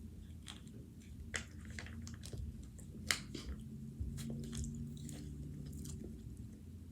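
A person chewing and biting crunchy food up close, with irregular sharp crunches, the loudest about three seconds in. A steady low hum runs underneath.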